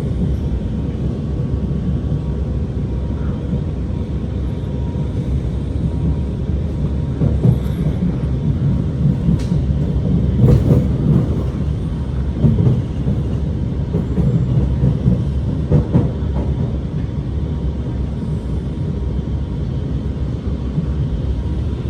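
Alstom R151 metro train running along the track with a steady low rumble, broken by a few sharp clacks from the wheels.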